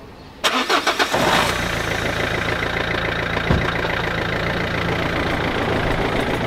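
Renault Clio's dCi diesel engine being started: the starter cranks briefly, about half a second in, and the engine catches within a second and settles into a steady idle. A single low thump comes about three and a half seconds in.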